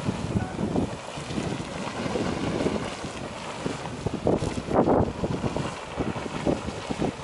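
Geyser erupting, water splashing and surging in irregular bursts, the strongest a little under five seconds in, with wind buffeting the microphone.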